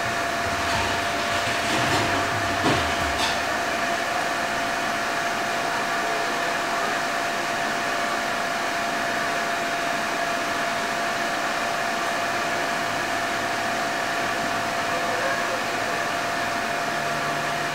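Computer cooling fans running with a steady whir and a constant pitched hum, most likely the Mac Pro tower's fans.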